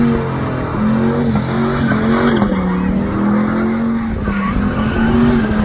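Red Dodge Ram pickup doing burnout donuts: the engine is held at high revs, wavering slightly up and down, while the rear tires spin and squeal against the pavement.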